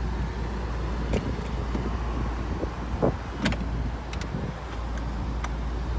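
A few sharp clicks and knocks, the loudest two about three seconds in, over a steady low rumble.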